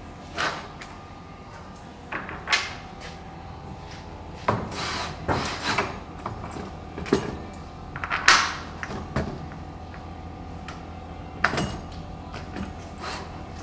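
Scattered knocks, clunks and rattles of wooden cabinet panels and bolt hardware being handled during assembly, about a dozen short hits, over the steady hum of a wall fan.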